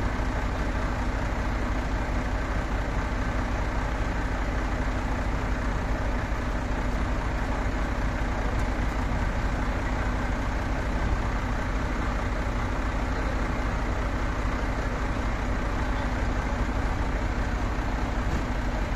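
Heavy diesel engine idling steadily, a constant low rumble with no revving.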